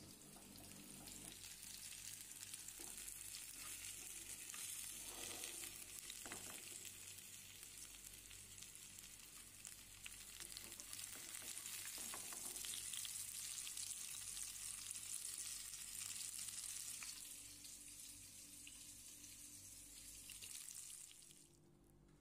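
Masala-coated fish steaks shallow-frying in hot oil in a pan, sizzling steadily with fine crackles; the sizzle cuts off abruptly near the end.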